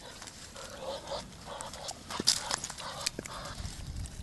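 A Weimaraner and a Muscovy duck scuffling on paving: short breathy noises and a run of sharp clicks and snaps, the loudest about two seconds in.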